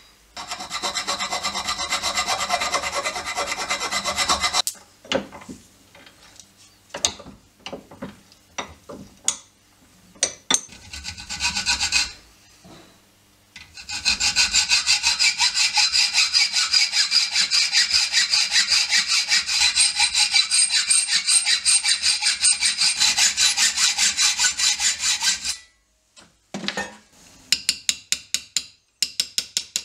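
Hacksaw cutting a small piece of scrap steel clamped in a vise. A short bout of fast strokes comes at the start, then scattered single scrapes, then a long steady run of sawing for about eleven seconds. Quick light strokes follow near the end.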